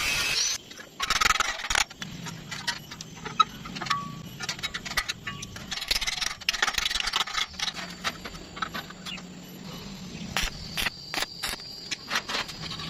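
Metal workpieces being handled: irregular clinks and knocks, with two short stretches of scraping, about a second in and again about six seconds in.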